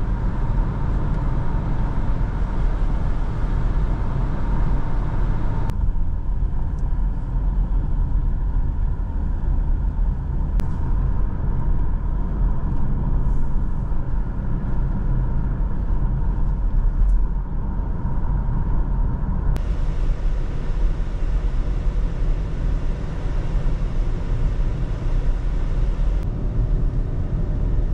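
Car on the road, heard from inside the cabin: a steady rumble of engine and tyres with road hiss. The hiss drops away abruptly about six seconds in and comes back abruptly near twenty seconds, with a faint steady whine under the first two-thirds.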